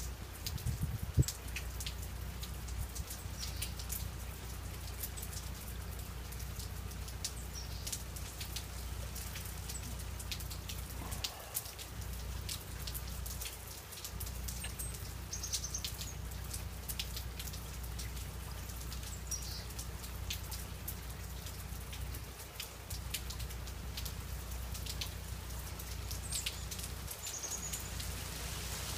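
Freezing rain falling through ice-coated pine trees: a steady patter with many small sharp ticks and drips, the loudest about a second in.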